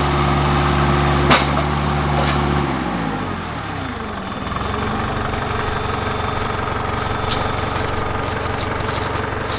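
Tractor engine running steadily, then throttled down, its pitch falling over a second or two before it settles to a steady idle. A sharp click is heard about a second in.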